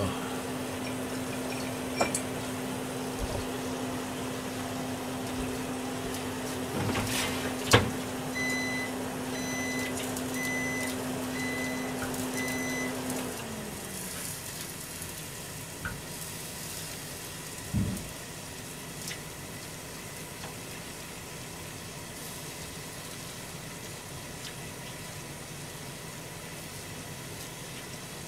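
Electric kitchen grill running with a steady hum. Five beeps about a second apart mark the end of its timed cooking stage, and the hum then winds down and stops. Sharp knocks come around two and eight seconds in, the one near eight seconds the loudest, and a dull thump follows near eighteen seconds.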